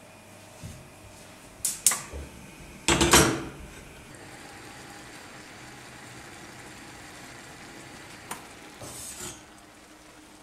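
Enamel pan and its lid clattering on a gas stove: two sharp clinks just before two seconds in, then a louder metal clank about three seconds in. A steady low hiss of the potatoes boiling in water follows, with a click and a brief scrape near the end.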